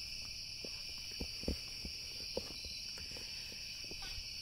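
Night insects, crickets, chirring in a steady high chorus, with a few soft knocks about a second and a half and two and a half seconds in.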